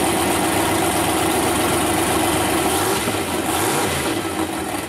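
Ford diesel engine of a monster truck idling steadily.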